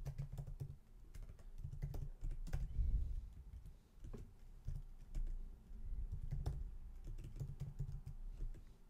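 Typing on a computer keyboard: irregular quick key clicks with soft low thuds from the keystrokes.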